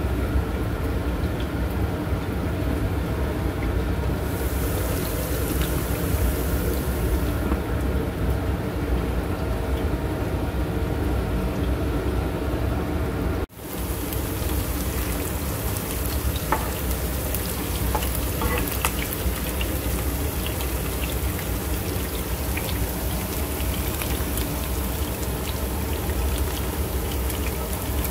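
Diced onions sizzling steadily in oil in an electric skillet, muffled under a glass lid at first. After a short break about halfway, the frying is uncovered, with scattered crackles and light clicks from a spatula stirring, over a steady low hum.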